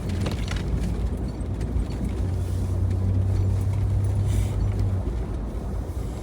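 Engine and road noise of a moving vehicle, heard from inside the cab: a steady low drone with a hum that eases about five seconds in.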